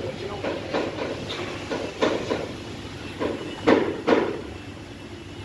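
An irregular series of short knocks and clanks, about a dozen, loudest near four seconds in, then dying away.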